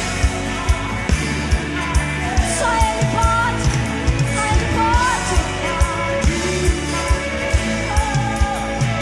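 Live worship band playing: a drum kit keeps a steady beat of about two hits a second under acoustic guitar, and female voices sing a Portuguese worship melody.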